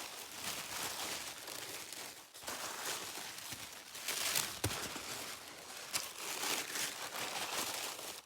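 Packing material crinkling and rustling in irregular swells as a mask is unwrapped by hand, with a couple of sharper clicks midway.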